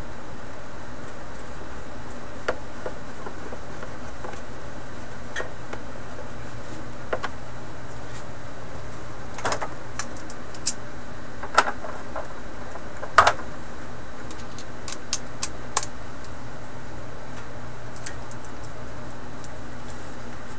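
Scattered light clicks and taps of hand work on the record player cabinet, a few sharper ones around the middle, over a steady hum and hiss.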